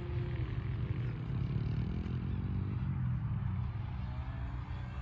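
F3A aerobatic radio-controlled model airplane flying overhead, its motor and propeller note dropping near the start, rising over a second or two, then falling away again as it manoeuvres. A low rumble of wind on the microphone runs underneath.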